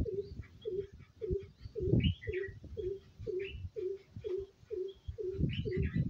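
Bird calls: a short low note repeated steadily about twice a second, with bursts of high chirps about two seconds in and again near the end, over low rumbling bumps that grow loudest near the end.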